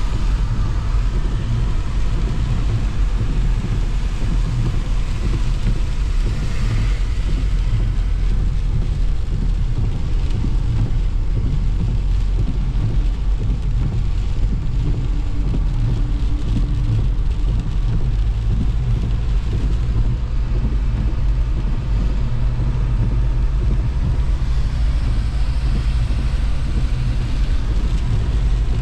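Car driving on a wet road in the rain, heard from inside the cabin: a steady low rumble of engine and tyres with the hiss of spray off the wet tarmac.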